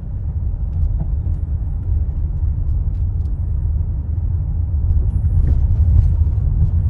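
Car driving, heard from inside the cabin: a steady low rumble of engine and road noise, growing a little louder about five seconds in.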